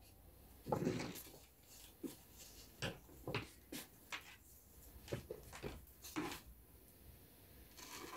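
Faint, scattered paper rustles and light knocks as a paper pattern and drafting tools are handled on a table. Near the end, scissors begin cutting the paper.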